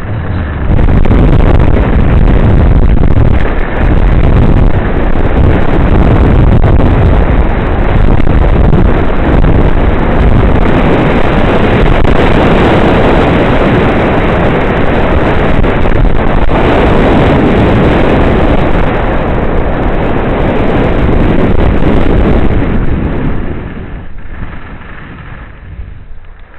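Loud, steady rushing wind on the microphone of a camera carried by a downhill skier, easing off near the end as the skier slows.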